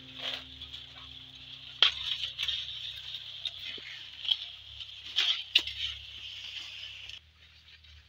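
Dry maize leaves and husks rustling as ripe corn ears are handled and picked from tall stalks. There are sharp snaps about two seconds in and again around five to six seconds in. The rustling cuts off abruptly near the end.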